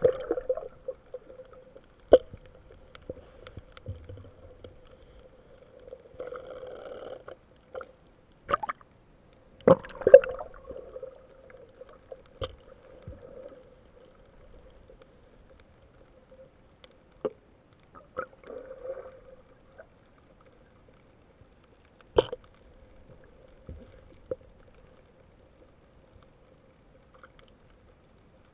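Underwater sound through a camera's waterproof housing: scattered sharp knocks and clicks from gear being handled, short stretches of bubbling about six seconds in and again near eighteen seconds, over a faint steady hum.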